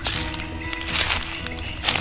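Background music with steady held notes, with two brief rustles, one about a second in and one near the end.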